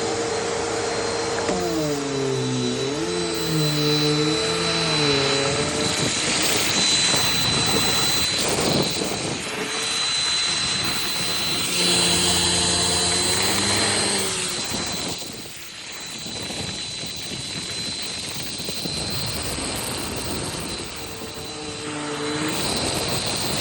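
Upright vacuum cleaner running on oatmeal, with a steady high-pitched whine over the motor. The lower motor tone wavers in pitch a few times as the vacuum is pushed and loaded, and the sound dips briefly about two-thirds of the way in.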